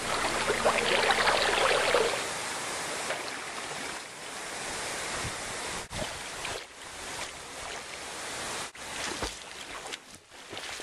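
Swimming pool water splashing and sloshing close to the microphone as a person swims alongside. It is loudest in the first two seconds, then goes on more steadily, briefly cutting out a few times.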